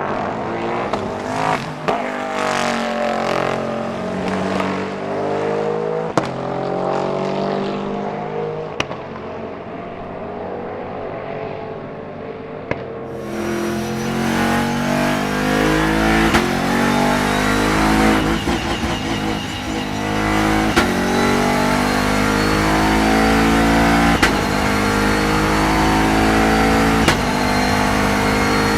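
Second-generation Bentley Continental GT3 race car's twin-turbo V8 revving hard through a six-speed Ricardo sequential gearbox, its pitch climbing and dropping again and again at each gear change, with a high metallic whine from the straight-cut gears. From about halfway it is louder.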